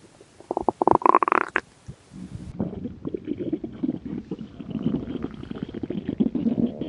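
Human stomach growling: a short gurgle rising in pitch about half a second in, then from about two seconds in a long bubbly rumble made of rapid little pops, the sound of gas and fluid moving through the gut.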